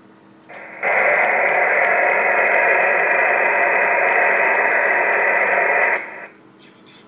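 Steady hiss of receiver noise from a 2 m VHF transceiver's speaker, tuned to 144.310 MHz SSB. The hiss is squeezed into the narrow voice range of the sideband filter. It comes on abruptly about half a second in, jumps to full loudness just after, and cuts off abruptly about six seconds in.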